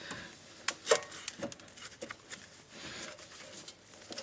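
Scattered light clicks and taps of a hand tool working on a brake caliper as the slide-pin bolt is tightened, with faint rubbing between them.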